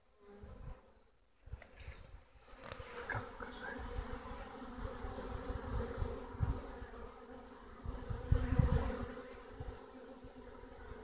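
Honeybees buzzing at the entrance of a busy hive, many bees flying in and out. The hum is faint at first, then swells louder about three seconds in and again around eight seconds in.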